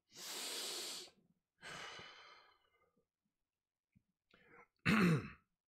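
A man takes a deep breath in and lets it out in a sigh, two breathy hisses in the first two and a half seconds. A short voiced sound follows near the end.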